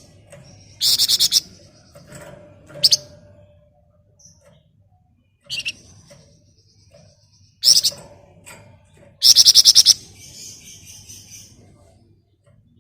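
Flamboyan songbird singing in short bursts of rapid, high, evenly repeated notes (its fast 'ngebren' trill), several seconds apart. Single sharp high calls fall between the bursts.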